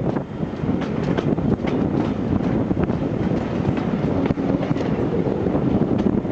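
Steam-hauled train behind A4 Pacific 60007 "Sir Nigel Gresley" rolling into the station: a steady rumble from the wheels, with many sharp clicks as they run over rail joints.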